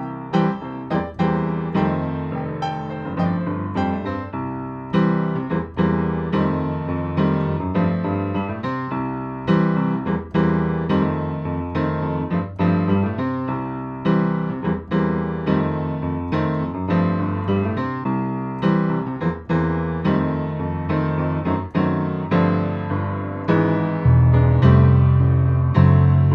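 Background music played on an electric piano: struck chords and melody notes in a steady rhythm.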